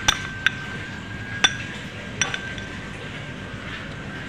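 Metal spoon clinking against a white ceramic bowl while stirring cornflour batter: about five sharp, ringing clinks at irregular intervals, the loudest near the start and about a second and a half in.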